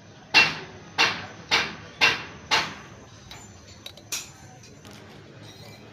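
Five sharp knocks about half a second apart, then one more about a second and a half later, as parts are worked on during a brush cutter engine assembly.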